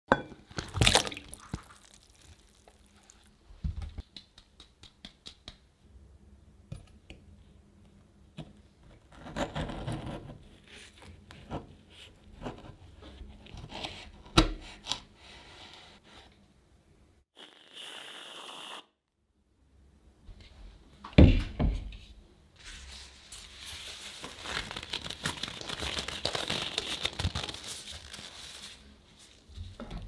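A quick run of close-up kitchen preparation sounds: water splashing as strawberries go into a bowl at the start, then scattered light taps and clicks, crinkling and rustling, with a longer stretch of crisp rustling near the end.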